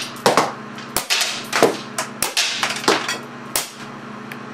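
Semi-automatic shots from a .25 caliber air cannon firing steel BBs on high-pressure air through an electronically pulsed 24 V solenoid valve: a quick, uneven string of sharp reports, about eight in three and a half seconds.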